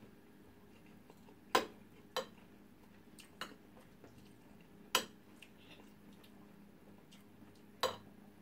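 Metal cutlery clinking and scraping against a shared plate while eating rice and stew: a few sharp clinks spread out, the loudest about a second and a half in, around five seconds in and near the end.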